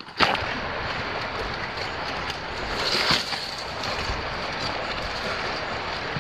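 Steady rushing of creek water flowing over rocks, starting abruptly just after the start, with a brief swell about three seconds in.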